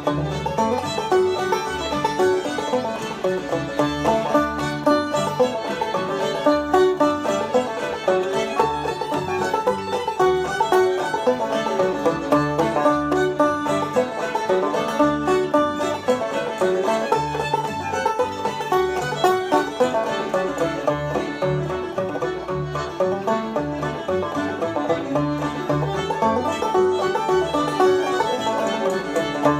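Fast instrumental string-band music with a steady quick pulse, led by a plucked banjo, with a fiddle faintly behind it.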